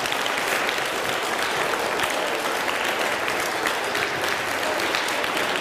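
A room of schoolchildren applauding, a dense, steady patter of many hands clapping.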